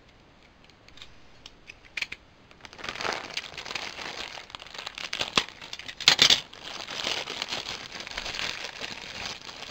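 Plastic packaging bag being cut and pulled open, crinkling. A few light clicks come first, then steady crinkling from about three seconds in, loudest about six seconds in.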